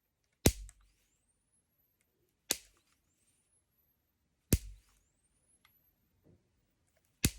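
Disposable-camera flash capacitor shorted across its leads, four sharp snaps of discharge about two seconds apart. After each snap the flash charging circuit gives a high whistle that rises in pitch as the capacitor recharges with the button held down.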